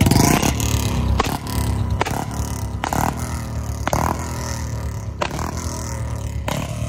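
Royal Enfield Bullet motorcycle with a short-bottle silencer running, its exhaust letting off a string of sharp backfire pops (pataka) every second or so, the loudest right at the start.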